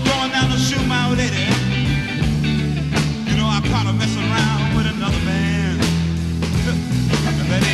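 Rock music: guitar over a steady bass line that moves in steps.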